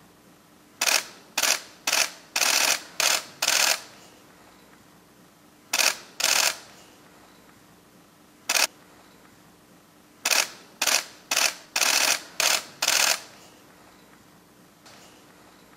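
Camera shutters clicking in rapid bursts, in clusters separated by short pauses, with a dense run of bursts in the last third.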